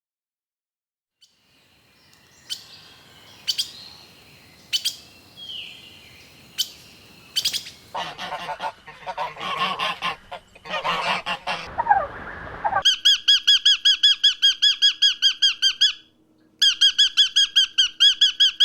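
A run of different animal calls, bird-like: a few sharp chirps, then harsh honking bursts, then a fast, evenly repeated high chattering call that stops briefly and starts again.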